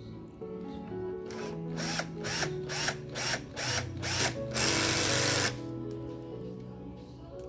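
Small electric motor whirring in about seven short spurts, roughly two a second, each rising in pitch, then running once steadily for about a second before cutting off.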